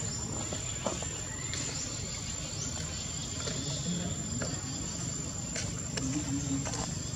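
Insect ambience: a steady, unbroken high-pitched insect tone, over a low, even background rumble with a few faint clicks.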